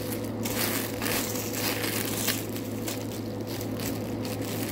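Clear plastic wrapping crinkling and rustling as it is worked and pulled off a new fishing rod.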